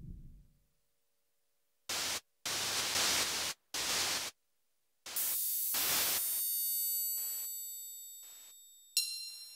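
Experimental noise music: a low rumble dies away, then after about a second of silence come three abrupt, hard-cut bursts of static hiss. Next a ringing metallic sound with many overtones starts and fades slowly, with more short bursts of hiss over it, and a bright bell-like strike comes near the end.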